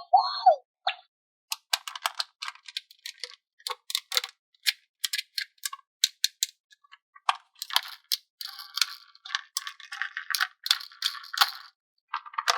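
Small hard objects, likely plastic toy pieces, clicking and rattling against each other in quick, irregular taps. The taps come thickest in the second half, with short scrapes among them.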